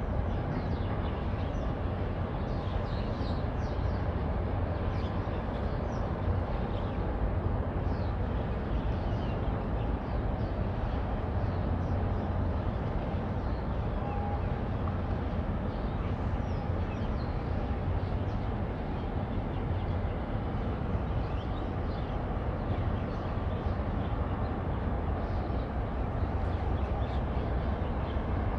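Low, steady engine drone of a large bulk carrier passing close by, with faint high chirps scattered over it.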